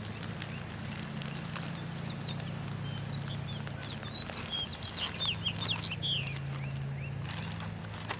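Birds chirping, a quick series of short high chirps through the middle of the stretch, over a steady low hum.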